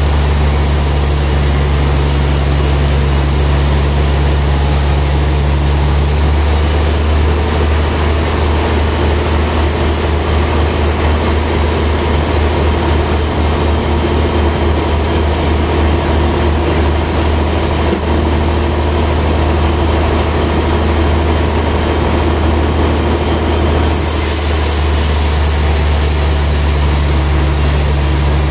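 Sawmill band saw running with a steady low hum. From about six seconds in until a few seconds before the end the blade cuts through a trembesi (rain tree) log and the sound turns rougher under the load, then it settles back to running free.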